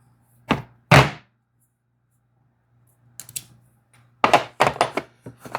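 Torque screwdriver and bits being handled and fitted together: two sharp knocks, then a short run of quick hard clicks near the end.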